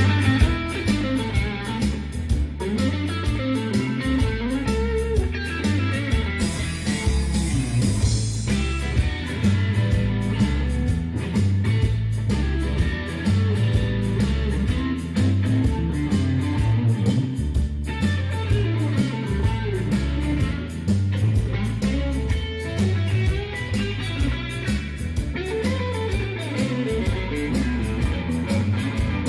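Band music with electric guitar playing over bass and a steady beat, as at a club sound check.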